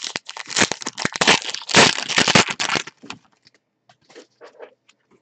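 A pack of baseball trading cards being torn open by hand: the wrapper crackles and crinkles for about three seconds, then light rustles and clicks as the cards are pulled out.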